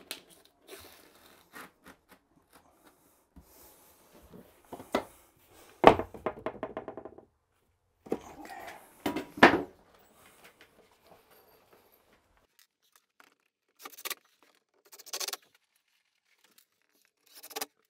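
Scattered knocks, taps and scrapes as shims are worked in under the edge of a shower base to hold it up level, the loudest knock about six seconds in, followed by a short rattle.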